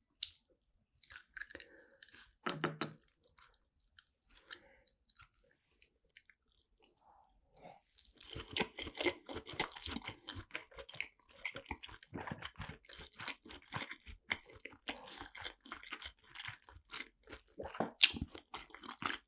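Close-miked chewing of salmon sushi, wet and irregular. A few small scattered clicks come first, and steady dense chewing starts about eight seconds in. One sharp click sounds near the end.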